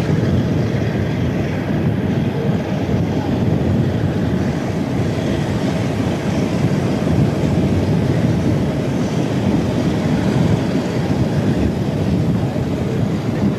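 A moving train's steady low rumble, heard from on top of a carriage, unbroken throughout.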